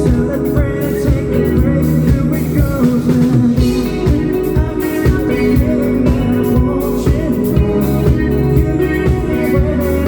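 A live rock band playing a song: guitar and drum kit with some singing, loud and steady with a regular beat.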